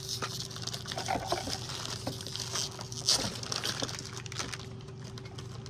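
Plastic snack wrapper rustling and crinkling as a package is opened by hand, with scattered small clicks and the loudest crackle about three seconds in.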